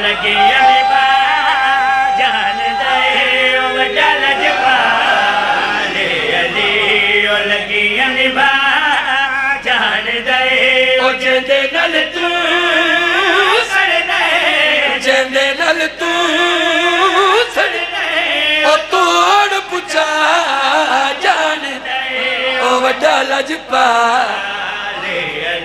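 A man's voice singing a long, melismatic line of a Punjabi devotional qasida through a microphone and loudspeakers, with long held notes and pitch that bends up and down.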